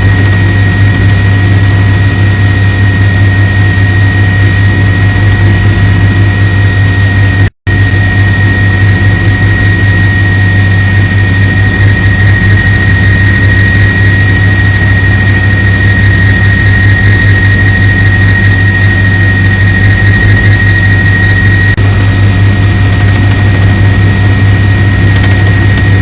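Steady drone of a news helicopter's turbine engine and rotor, a deep rumble under a constant high-pitched turbine whine. The sound cuts out for an instant about seven and a half seconds in.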